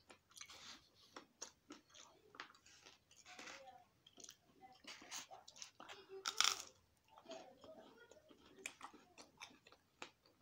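Chewing and biting a waffle topped with scrambled eggs: many short, wet mouth clicks, with one louder crunchy bite about six seconds in.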